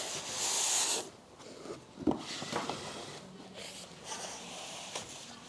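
Packaging rustling and kit parts being handled during unboxing, with a sharp knock about two seconds in.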